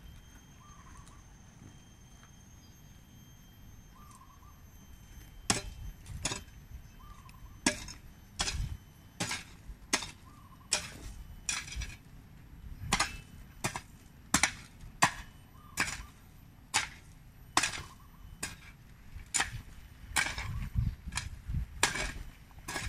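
Long-handled garden hoe chopping into soil. From about five seconds in, the blade strikes the ground again and again, sharp separate chops at roughly one to two a second.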